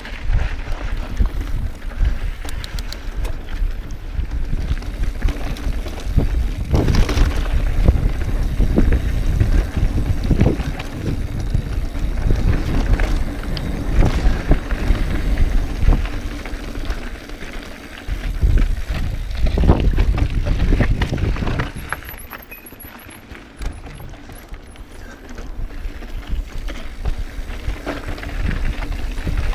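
Evil The Following mountain bike ridden over rocky desert singletrack, heard from a camera on the bike: a steady rumble from the tyres and a clatter of chain and frame over rock, with wind on the microphone. It eases off for a few seconds about two-thirds through, then picks up again.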